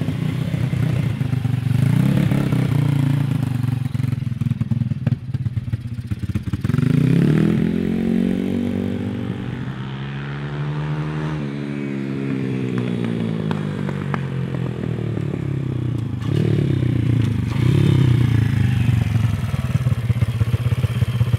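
Honda CT70 mini bike's 140cc four-stroke single running, first at steady low revs, then revving up as it rides off, with a pass-by where its pitch drops about eleven seconds in, and running louder again near the end as it comes back. This is a test ride after a valve adjustment, to see whether its poor low-rpm running is cured.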